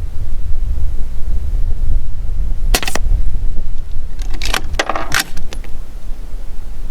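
Metallic clicks and clinks of an AR-15's action being worked by hand: a sharp double clack about three seconds in, then a quick run of clicks and clinks a second later. This fits the charging handle being pulled to eject the spent case and chamber the next subsonic .223 round, because the rifle does not cycle on its own with this ammunition. A steady low rumble runs underneath.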